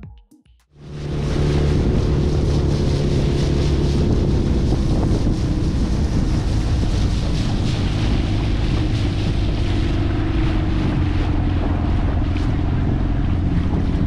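Outboard motor of an inflatable dinghy running steadily under way, with wind buffeting the microphone and water rushing past. It starts about a second in.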